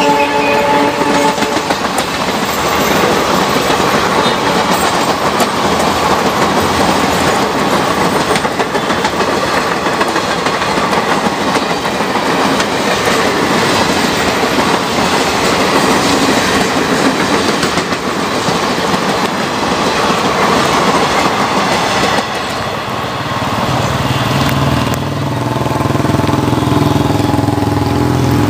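Passenger coaches rolling past close by, the wheels clattering over the rail joints, for about twenty seconds. After a cut, an approaching diesel locomotive's engine runs with a low steady note and its horn sounds during the last few seconds.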